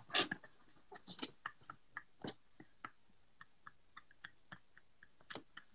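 A string of faint, irregular clicks and ticks, several a second at first and thinning out, with one sharper click near the end.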